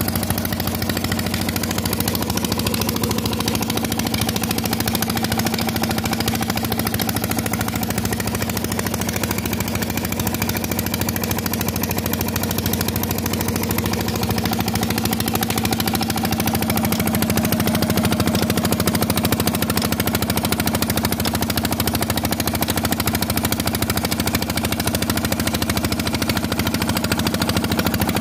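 Petter diesel engine running steadily while belt-driving a well water pump, with a rapid, even knocking beat.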